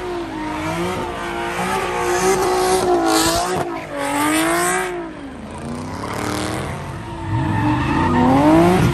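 A car engine revving up and down repeatedly as the car spins donuts, with its tyres squealing and skidding on the pavement. The squeal is sharpest about three seconds in.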